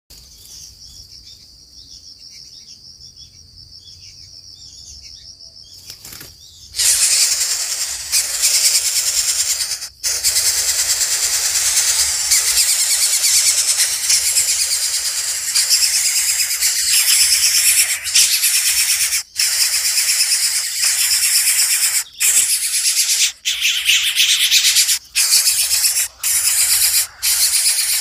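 Greater coucal nestlings making loud, harsh, hissing begging calls. They start about seven seconds in and go on in long stretches broken by brief pauses.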